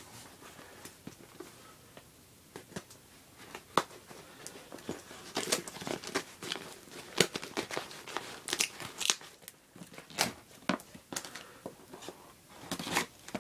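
Cardboard shipping box being pried and torn open by hand: irregular crackling, tearing and snapping of cardboard, sparse at first and busier from about five seconds in.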